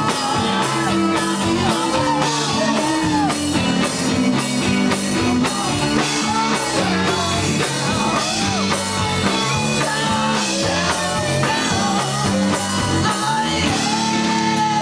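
Live rock band playing, with a drum kit keeping a steady beat under electric guitar lines that bend in pitch.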